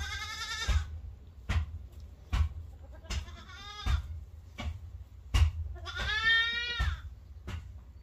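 Newborn goat kids bleating: three calls, the loudest and longest about six seconds in. Short, sharp knocks recur about every three-quarters of a second throughout.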